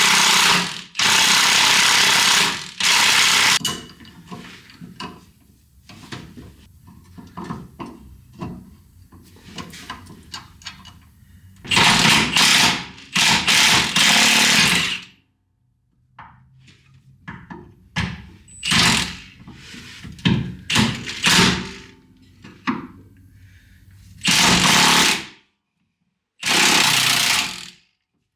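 Impact wrench hammering on the 22 mm torsion bar adjusting nut in several bursts of a second or two, with tool clinks and knocks between the bursts.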